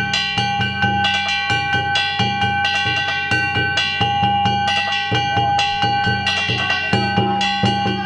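Danjiri float festival music: taiko drums and hand-struck kane gongs played in a fast, steady beat, the gongs ringing on over the drum strokes.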